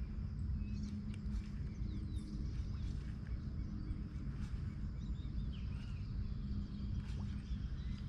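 Outdoor waterside ambience: birds chirping faintly over a steady low rumble and hum.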